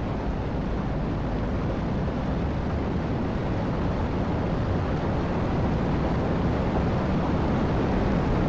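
Film sound effect of seawater erupting into steam as the ocean is vaporized: a steady, dense rushing noise of churning water and wind.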